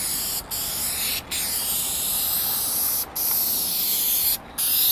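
Dupli-Color aerosol spray paint can hissing as it sprays paint onto a truck hood, in passes broken by four brief pauses.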